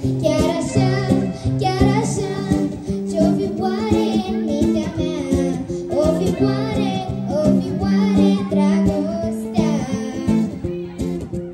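A girl singing a Romanian pop song into a microphone over a recorded backing track with guitar and a steady beat, played through stage loudspeakers.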